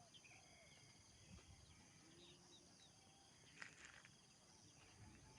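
Near silence: faint outdoor ambience with scattered soft bird chirps and a steady high insect drone.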